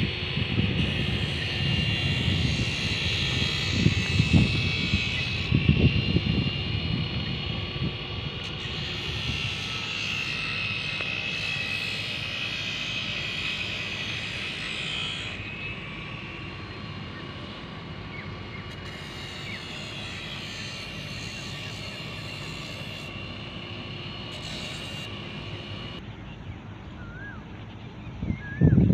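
A distant engine running steadily with a wavering high whine. Gusts rumble on the microphone through the first several seconds, and a few bird chirps come near the end.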